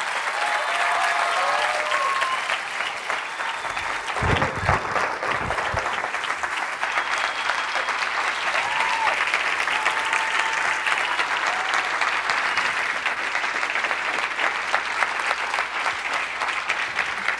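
Audience applauding steadily, with a few dull thumps about four to six seconds in.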